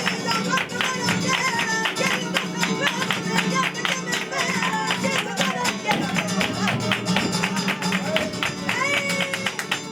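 Live flamenco bulería: acoustic flamenco guitar with singing over dense, sharp, fast percussive hits from hand clapping and dancers' footwork.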